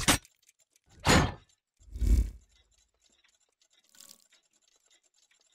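Sound-effect hits of an animated logo intro: two short, loud impacts about a second apart, the second deeper with a low boom, then a faint softer hit about four seconds in.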